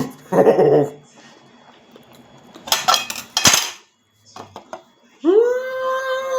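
Cutlery clinking against a plate: a short cluster of clatter in the middle and a few light clicks after it. Near the end, a long steady call is held for about a second and a half.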